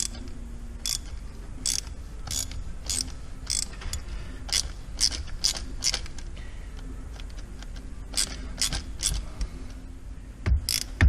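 Hand ratchet clicking in short strokes, about one or two clicks a second and unevenly spaced, as a tight, corroded 5/16 mounting screw on the glow plug relay is worked loose.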